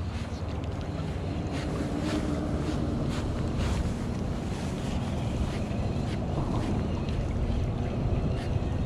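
Wind buffeting the microphone outdoors, over a low, steady engine hum.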